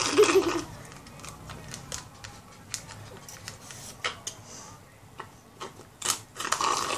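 Shakes being slurped hard through straws: a noisy gurgling slurp that dies away about half a second in, a scatter of small sucking clicks, then another long slurp starting near the end.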